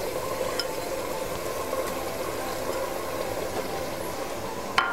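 Water at a rolling boil in an aluminium pot, bubbling steadily. A short clink right at the end.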